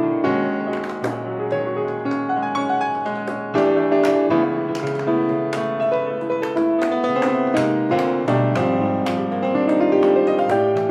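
Grand piano playing, with the metal taps of tap shoes striking a wooden board in scattered sharp clicks over it.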